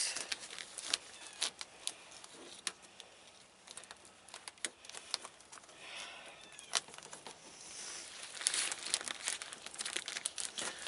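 Duct tape being pulled off the roll and pressed down over a plastic trash bag, with the plastic crinkling and crackling. There are many short crackles and one longer rasp of tape coming off the roll about eight and a half seconds in.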